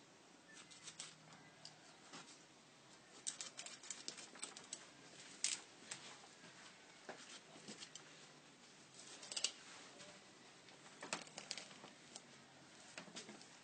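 Knife cutting through a rabbit carcass at the joints: faint, irregular clicks and snips, with a few louder ones.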